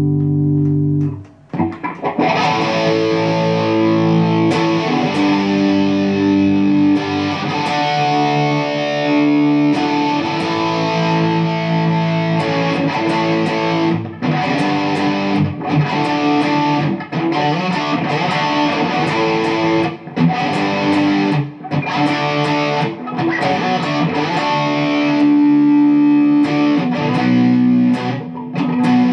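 1995 Gibson Les Paul Standard electric guitar played through an amp with distortion: a held chord rings out and stops about a second and a half in, then continuous riffs and lead lines with short breaks between phrases.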